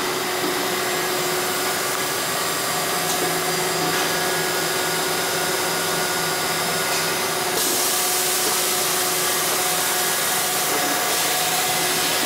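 Lubricating-oil filling and capping line running: a steady mechanical drone of motors and conveyors, with a constant hum and a strong hiss. The noise grows slightly louder and brighter about seven and a half seconds in.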